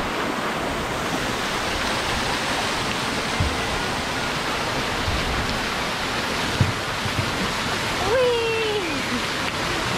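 Steady rush of water pouring down a children's splash-pool slide and splashing into the shallow pool. About eight seconds in, a brief high call slides down in pitch.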